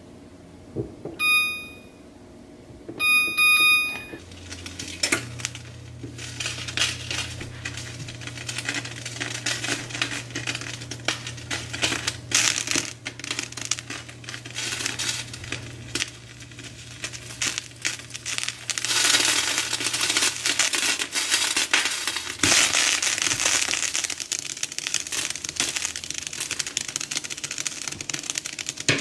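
Hot oil sizzling and crackling in a frying pan as cornmeal-breaded fish fillets fry, a dense hiss of tiny pops that gets louder past the middle. Near the start come two short electronic beeps.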